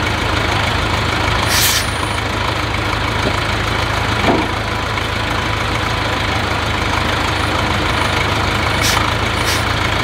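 Heavy diesel engine idling steadily, broken by three short hisses: one near the start and two near the end.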